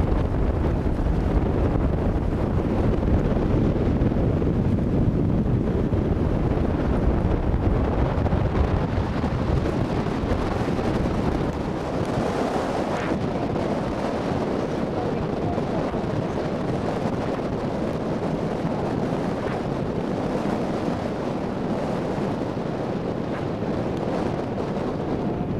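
Strong wind blowing across the microphone: a steady, gusty rush heaviest in the low end, which eases a little about halfway through.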